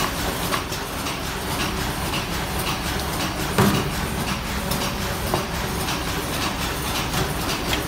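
Paper cup forming machine running at speed: a steady, rapid mechanical clatter of many clicks and knocks, with one louder thump about three and a half seconds in.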